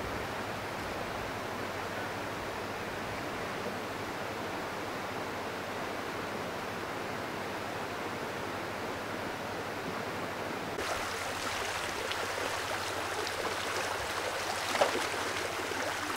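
Flooded river rushing in a steady roar of moving water. About eleven seconds in, it changes abruptly to the closer, brighter hiss and babble of a shallow, fast stream, with small splashes and one brief sharp sound near the end.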